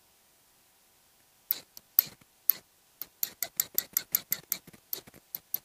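Sharp wooden clicks of a paintbrush tapped against a pencil to spatter watercolour onto the paper. Three single taps about half a second apart, then a quick run of about five taps a second.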